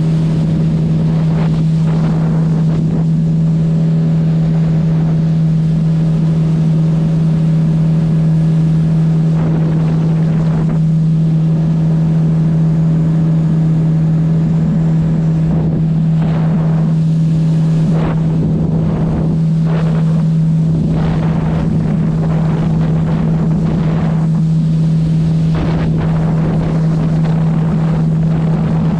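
Jet boat engine running steadily at a constant cruising speed, its pitch holding even, with wind buffeting the microphone and water rushing along the hull.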